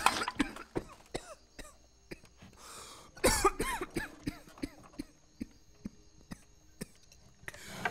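A man coughing and clearing his throat in several short fits, the loudest about three seconds in, with a few light knocks between them.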